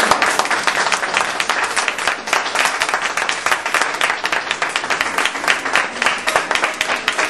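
Audience applauding: many hands clapping densely and continuously.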